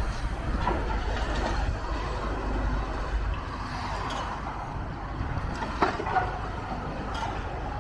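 Building demolition: a low rumble of machinery with wind buffeting the microphone, and a couple of sharp knocks about six seconds in as debris comes down.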